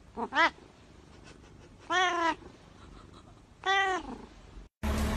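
Domestic cat meowing: a quick pair of short meows near the start, then two longer drawn-out meows, each rising then falling in pitch. Just before the end, marimba music begins.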